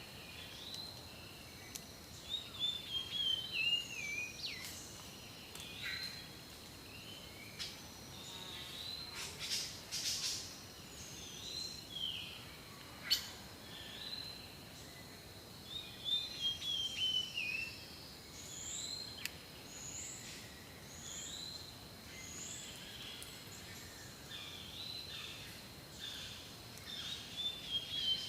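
Several songbirds singing and calling: short repeated chirps and a few quick descending trills, with a steady high tone running underneath.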